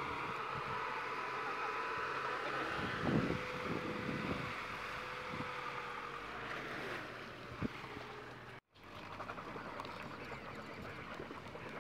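Land Rover Freelander 2's engine running steadily as it wades through water, with water swishing and splashing and a few thumps. The sound cuts out for an instant about nine seconds in, then the splashing resumes rougher.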